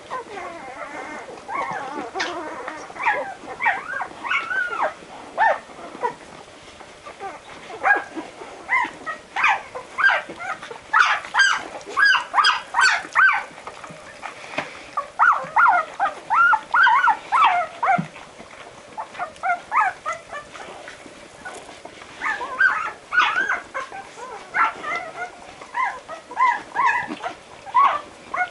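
Newborn Barbet (French water dog) puppies squeaking, many short high-pitched calls coming in bursts with brief lulls, as the litter nuzzles in to nurse from their mother.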